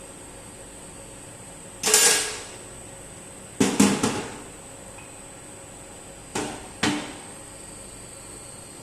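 Metal knocks and clanks from a tool being fitted into a CNC machine's tool post. There is one knock about two seconds in, a quick run of three around four seconds, and two more near seven seconds.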